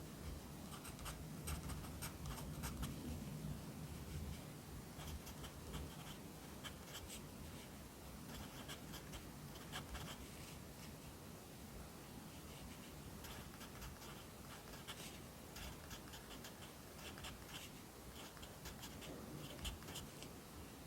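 Pencil writing Korean characters on paper: clusters of short, scratchy strokes with brief pauses between them.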